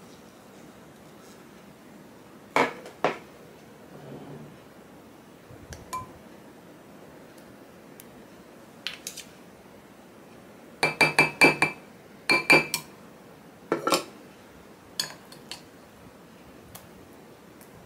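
Metal spoon clinking and knocking against a glass food processor bowl while scraping out avocado purée: two knocks, then about halfway a quick run of ringing clinks, followed by a few more knocks and lighter taps.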